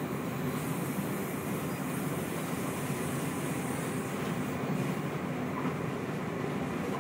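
Steady low rumble and hiss of an electric suburban train heard from inside the carriage while running at speed, wheels on rail with no rail-joint clicks.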